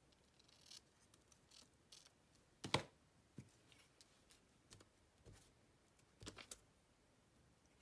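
Quiet crafting sounds at a table: scissors snipping paper, then a sharper knock about three seconds in as the scissors are set down. Soft clicks and paper rustles follow as a glue stick and a book page are handled.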